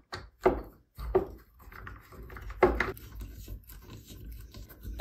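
A screw being turned by hand with a screwdriver into the end of a wooden dowel: a few short knocks and scrapes in the first few seconds, over a faint, steady rubbing as the screw turns in the wood.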